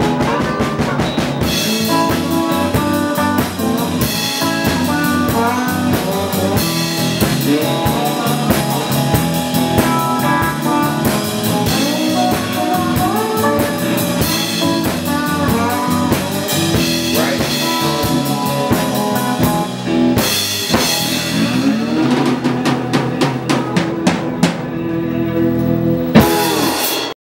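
Live electric blues band playing: electric guitar, keyboard and a drum kit keeping a steady beat. A loud hit comes just before the sound cuts off abruptly near the end.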